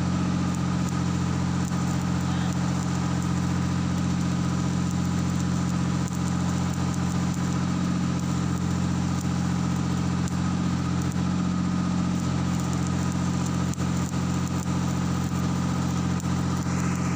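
A machine's engine running steadily at one speed: an even, unchanging low drone.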